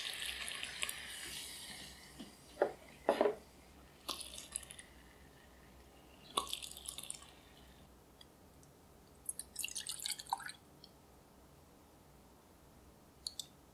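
Hot caramel poured from a small pan into heatproof glass pudding cups: a hiss for the first two seconds, then scattered light taps and crackles as the caramel drips and bubbles in the glass.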